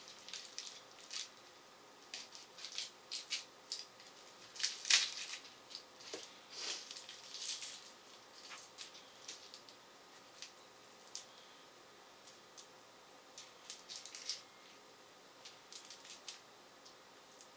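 Dry, papery crackles and small irregular clicks from a garlic bulb being broken apart and a clove peeled of its skin by hand.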